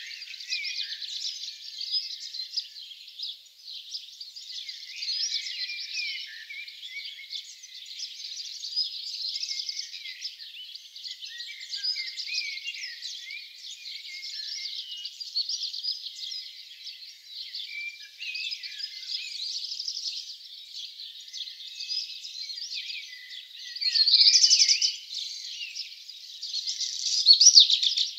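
Dawn chorus of many small songbirds singing at once, a dense, unbroken tangle of overlapping chirps and trills. A louder song stands out about three-quarters of the way through and again near the end.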